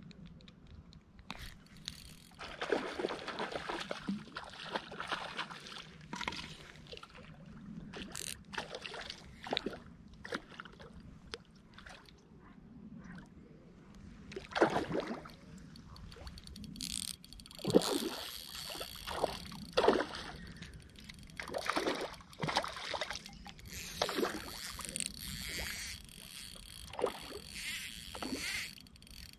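Water sloshing and splashing against a small boat's hull in irregular bursts, over a faint steady low hum.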